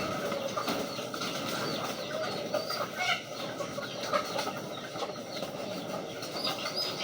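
Racing pigeons in a loft, with wings flapping amid a continuous busy mix of bird calls.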